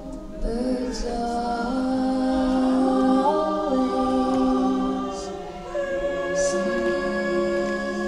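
A women's choir and a female solo singer singing long held chords, the harmony shifting about half a second in and again near six seconds.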